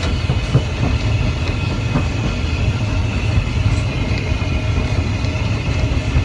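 Steam locomotive coasting with the regulator shut, heard from the footplate: a steady low rumble of the wheels and running gear on the rails, with light clicks.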